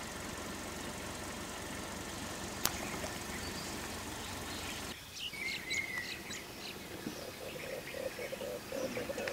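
Steady background noise with one sharp click, changing abruptly about halfway through to birds chirping and calling. Near the end there is a fast, evenly pulsing call at about five beats a second.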